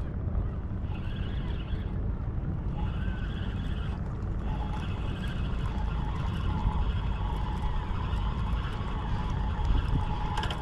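Wind rumbling on the microphone outdoors. A faint steady tone joins in about four and a half seconds in.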